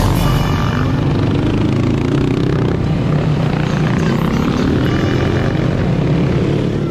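Dirt bike engine running steadily while riding, heard from on the bike.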